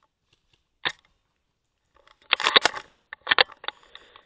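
Sharp clicks and knocks of an airsoft rifle being fired and handled: one single click about a second in, then two clusters of rapid clicks in the second half, the first the loudest.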